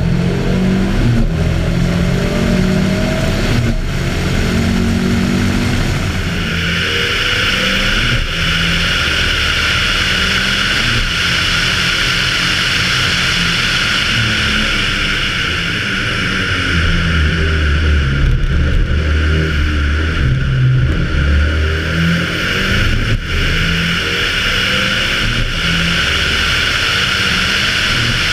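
Audi Quattro A2 Group B rally car's turbocharged five-cylinder engine running hard at racing speed, its pitch rising and falling with the throttle, heard from the bonnet. A steady rushing hiss joins in about six seconds in.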